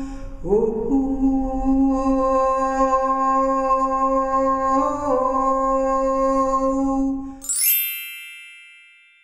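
A woman's voice holding one long sung note, sliding up into it at the start, with a slight wobble about five seconds in. Near the end the voice stops and a bright chime strikes with a quick rising shimmer, then rings and fades away.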